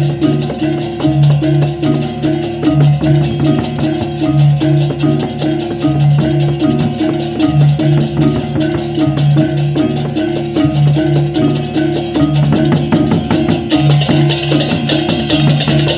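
Balinese baleganjur gamelan playing: clashing cengceng kopyak hand cymbals, kendang drums and gongs, with low gong tones repeating in an even interlocking pattern. Near the end the cymbals grow louder.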